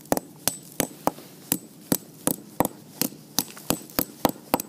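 Hammer repeatedly striking small brick chunks on a wooden beam, crushing the brick into powder: sharp knocks, about three a second.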